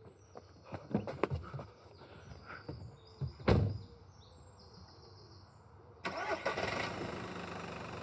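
Light clicks and knocks of movement inside a car, then a heavy thud about halfway through, like a car door being shut. About two seconds later a car engine starts and runs steadily at idle.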